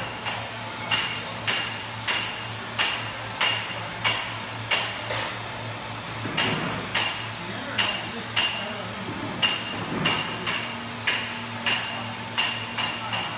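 Steady, even hammer blows on steel, about one every 0.6 s, each ringing briefly with a metallic tone, over a steady low machine hum.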